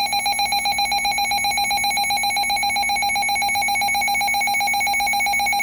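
Weather alert radio sounding its electronic warning alarm: a loud, rapidly pulsing high beep tone that holds steady in pitch.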